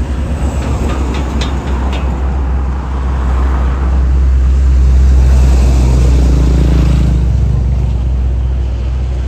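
Tour bus's diesel engine running close by, a deep low rumble that swells to its loudest about halfway through and then slowly eases off, its pitch rising for a moment a little after the peak.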